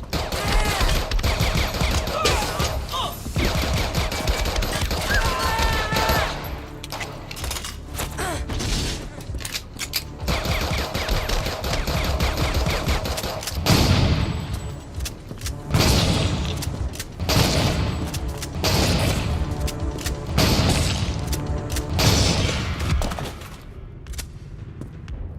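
Movie gunfight sound effects: a rapid run of pistol shots, then a few seconds of reloading, then heavy shotgun blasts about every one to two seconds.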